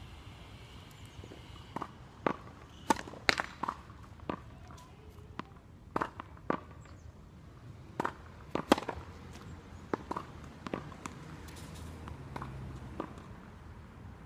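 Tennis balls bouncing on a hard court and being struck by rackets: a string of sharp pops and knocks at irregular intervals.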